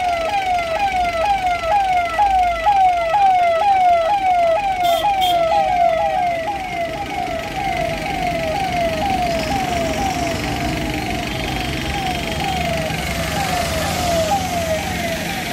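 Fire engine siren sounding a fast, repeating yelp, about two and a half pitch sweeps a second, growing a little fainter near the end. The low running of the passing fire trucks' engines comes up in the second half.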